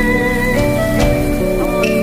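Background music: layered held notes that change every half second or so, with a few light ticks.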